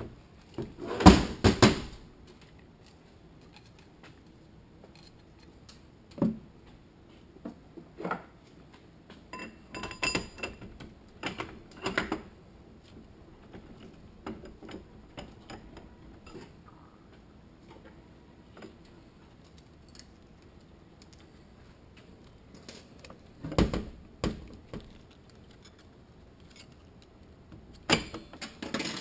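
Intermittent metallic clinks and knocks of Toyota A340 automatic transmission parts being handled: the output shaft going into the aluminium case and a retaining clip being fitted. The loudest clatter comes about a second in, with more scattered knocks later and another loud cluster near the end.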